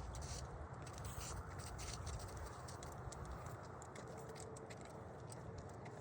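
Footsteps crunching quickly and irregularly through snow, over a steady low rumble.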